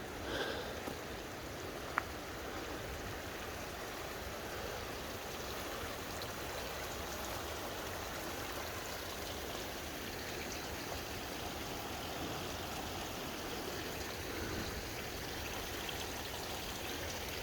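A mountain creek running steadily, an even rush of water, with one sharp click about two seconds in.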